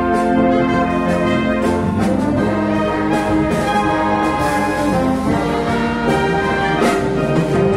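Wind band of brass and clarinets playing sustained chords, with a few percussion strokes.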